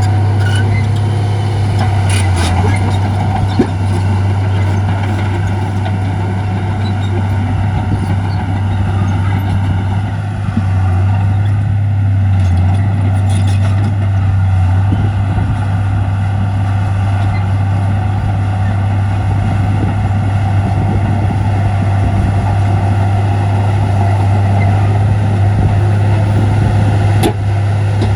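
Heavy diesel earthmoving machinery running steadily at a constant engine note, with a few sharp metallic clanks now and then.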